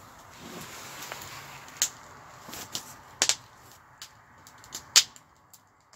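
A few sharp, irregular cracks and clicks, the loudest about three seconds and five seconds in, over a faint steady hiss.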